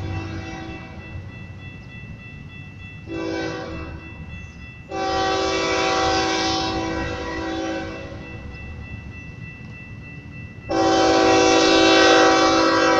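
Diesel freight locomotive's air horn sounding a chord in three blasts: a short one about three seconds in, a longer one starting about five seconds in, and the loudest starting near the end and still sounding as it closes, over a low rumble.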